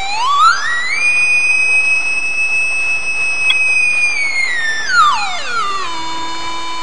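Buzzy electronic tone from a small loudspeaker driven by a 555 timer oscillator circuit on a breadboard. It glides up in pitch in the first second, holds a steady high whine for about three seconds, then slides back down to a low steady buzz near the end.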